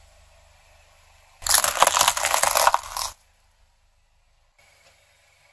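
Car tyre rolling over three small plastic spring toys (mini slinkies), crushing them: a dense run of plastic crackling and snapping that starts about a second and a half in and lasts about a second and a half.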